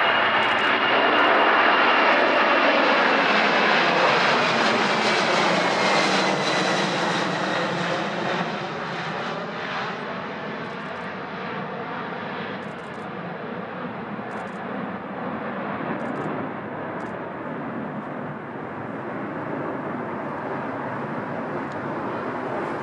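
Boeing 747 jetliner's four jet engines at takeoff power as it climbs low overhead: a loud roar with a whine that falls in pitch as it passes, easing after about eight seconds into a steadier, weaker rumble as it flies away.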